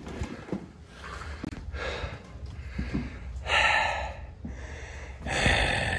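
A man breathing hard with the mouth open as he crawls through an attic, with two heavy breaths about three and a half seconds in and near the end. Small knocks and rustling from his movement run underneath.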